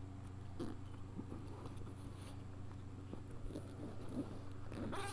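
Soft handling of a fabric mallet bag being opened: scattered faint clicks and rustles over a steady low hum.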